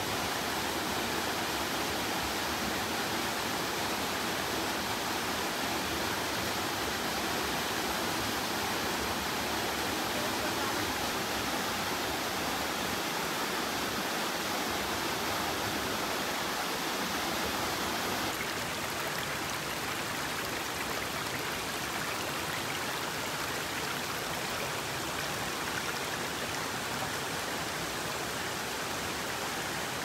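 Waterfall falling, a steady even rush of water that drops slightly in level a little past halfway through.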